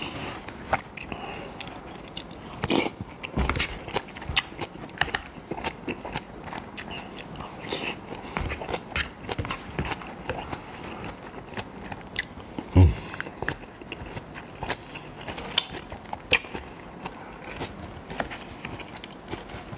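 Close-up chewing of a mouthful of brown rice and chicken, with a metal spoon and fork clicking and scraping against a paper takeaway box; one louder knock about 13 seconds in.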